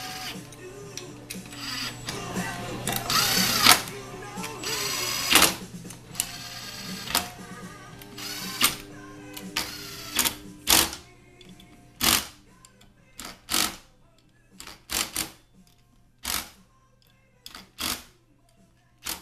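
DeWalt cordless drill/driver running Torx bolts into a transmission pump, the motor whining up and down through longer runs. From about halfway it gives a series of short, sharp bursts roughly a second apart.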